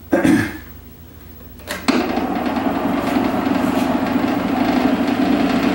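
A knock, then the wood lathe is switched on about two seconds in and runs steadily with a low motor hum as the taped-on block spins up, before any cutting.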